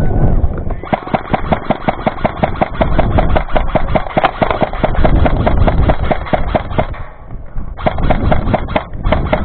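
Krytac Alpha CRB electric airsoft rifle firing on full auto: a long rapid string of shots lasting about six seconds, a short pause, then another burst near the end.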